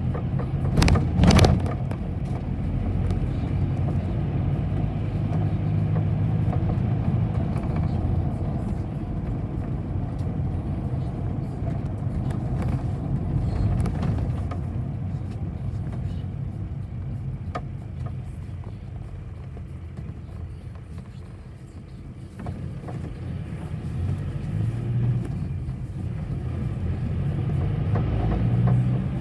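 City bus engine and road noise heard from inside the cabin as the bus drives, with two sharp knocks about a second in. The engine noise eases off to its quietest just after twenty seconds, then builds again near the end.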